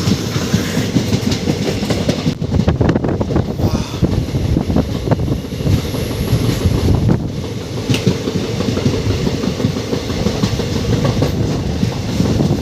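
Express passenger train running along the line, with a steady rumble of wheels on the rails.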